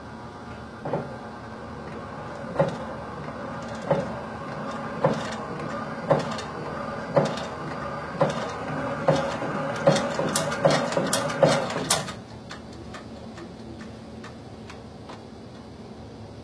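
Small shake table running: a steady motor hum with a knock on each shake stroke. The knocks come faster and faster as the speed is turned up, then everything stops suddenly about twelve seconds in.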